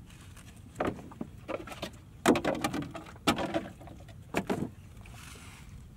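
Handling noise in a small wooden boat as fishing line is hauled in at a bamboo pole: a string of about six knocks and short clatters, the loudest a little past two seconds in, then a soft rustle near the end.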